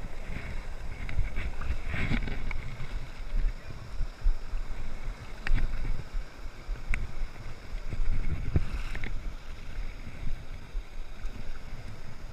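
Wind rumbling on the microphone over moving water, with a few light knocks.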